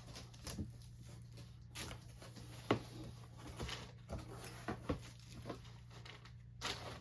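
Scattered light knocks and taps, irregular and a few per second, the sharpest about two and a half seconds in, over a steady low hum.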